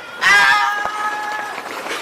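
A car horn sounding once, a single steady held blast of about a second and a half.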